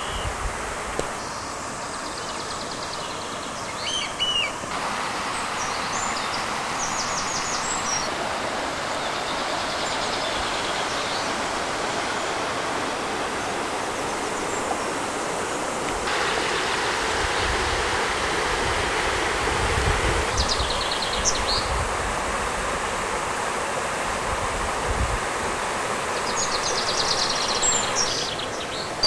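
A river's flowing water rushing steadily, with birds chirping briefly now and then. A low rumble comes in about halfway through and fades out again.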